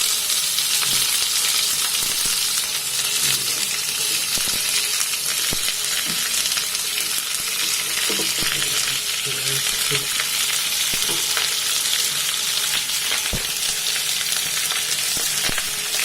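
Sliced onions sizzling steadily in hot oil in a kadhai while being stirred, with a few short knocks, one sharper late on.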